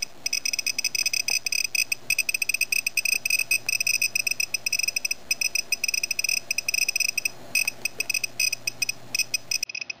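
Gamma-Scout Geiger counter ticking rapidly and irregularly, a dense stream of short high-pitched beeps, as it is held close to a pile of uranocircite and autunite: a high radiation count rate from the uranium minerals.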